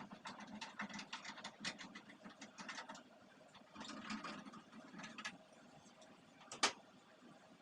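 Quick, scratchy strokes and clicks as kitchen ventilation-fan parts are cleaned and handled, with one sharp click near the end.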